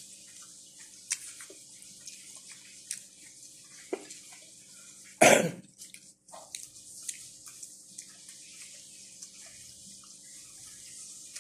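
Small clicks and smacks of people eating shrimp and crab, with one loud, short cough about five seconds in.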